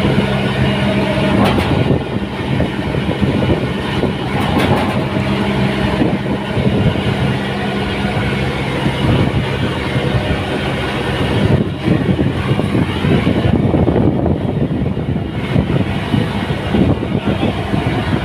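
An engine running steadily at a constant speed: a low droning hum under a rough rushing noise.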